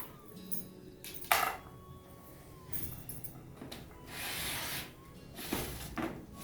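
Packaging and parts of a boxed toy tent playhouse being handled during unboxing: rubbing and rustling, a sharp knock about a second in, and a longer scraping rustle around four seconds in. Faint background music.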